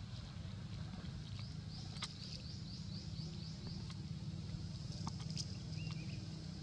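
Outdoor ambience: a steady low rumble, with a bird repeating a short rising chirp about four times a second for a couple of seconds, and a few faint clicks.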